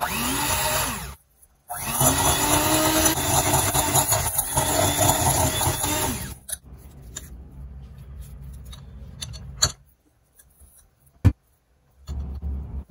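Electric hand mixer running, its wire beaters whisking margarine and sugar against a glass bowl. It starts and stops several times, with a long loud run, a quieter stretch, a near-silent pause broken by one sharp click, and a final short burst near the end.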